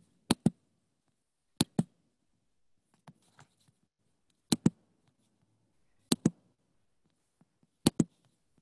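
Computer mouse clicks in sharp pairs, five pairs spaced a second or more apart, with near silence between.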